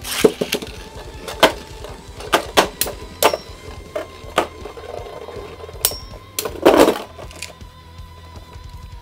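Beyblade spinning tops clashing in a small stadium: a string of sharp clacks as they hit, with a louder, longer rattle of collisions about seven seconds in.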